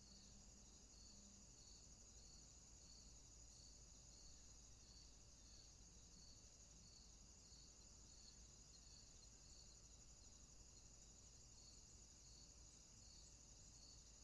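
Faint insects chirping: a continuous high trill with a second, lower chirp repeating evenly a little under twice a second.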